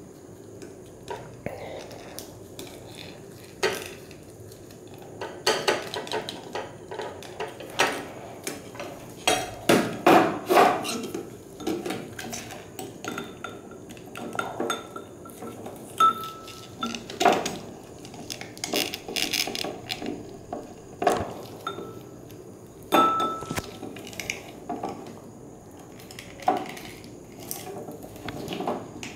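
A plastic syringe knocking and clinking against the inside of a glass beaker in irregular taps, with a few short glassy pings. The taps are densest and loudest about a third of the way in. The syringe is being worked through a thick, viscous cellulose solution that is hard to draw up.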